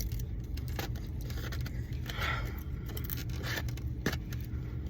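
A steady low hum with light rustling and a few sharp clicks and scrapes, as of food and packaging being handled.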